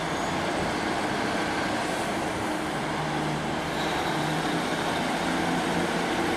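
Diesel multiple unit's underfloor engines running with a steady low hum; a faint high-pitched tone joins about four seconds in.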